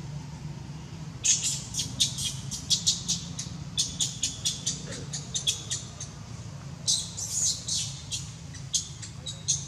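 A rapid run of short, high-pitched chirps, several a second, starting about a second in with a brief pause midway, over a steady low hum.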